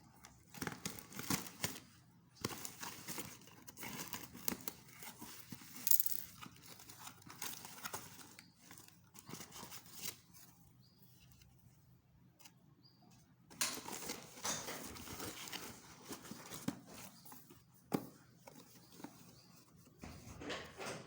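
Packaging of a blood pressure monitor kit being opened and handled: plastic and cardboard rustling and crinkling in bursts, with a pause in the middle and a sharp click near the end.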